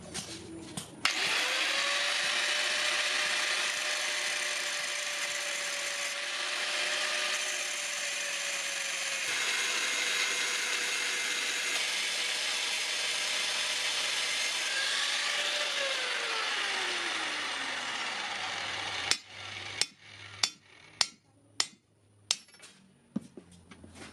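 Electric power tool starting about a second in and running steadily with a whine and hiss. It is switched off and its pitch falls as it spins down. Near the end come a series of sharp metallic knocks and clinks.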